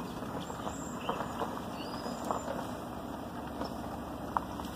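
Low steady rumble of a vehicle rolling slowly, heard from inside the cab, with a few faint ticks and a couple of faint high chirps.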